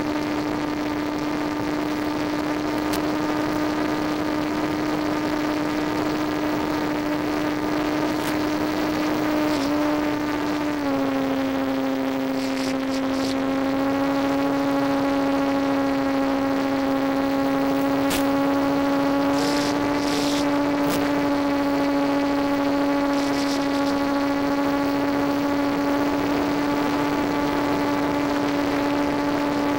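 Electric propeller motor of an EasyStar RC plane in flight, heard from the onboard camera as a steady droning hum. Its pitch drops slightly about a third of the way in as the throttle eases, then holds steady. A few brief crackles come through now and then.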